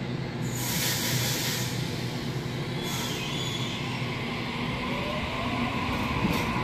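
Sydney Trains double-deck electric train pulling out of the station and running past close by. Two short hisses sound, one near the start and one about three seconds in.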